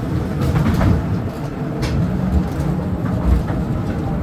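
Mine train cars rolling on rails into a mine tunnel: a steady low rumble with scattered sharp clanks and rattles.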